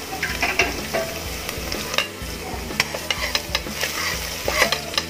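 Sliced onion and minced garlic sizzling in hot oil in a metal pan as they are sautéed and stirred, with a utensil clicking and scraping against the pan now and then.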